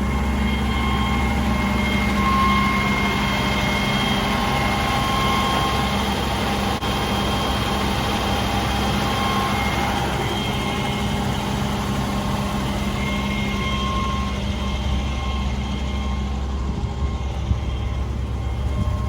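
Vehicle engine idling steadily, a continuous low hum with a faint high whine over it.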